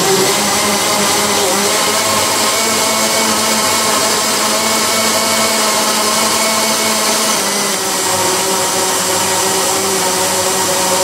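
Countertop blender motor running steadily at speed, whipping strawberry gelatin liquid into a foam; a constant motor hum over a whirring hiss.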